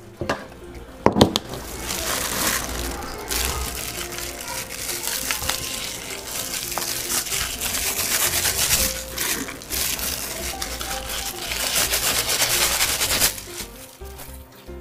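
Crinkling and rustling of a thin disposable plastic glove as a gloved hand scatters crushed peanuts from a bowl, a dense crackle with a couple of sharp clicks about a second in; it stops near the end. Soft background music plays underneath.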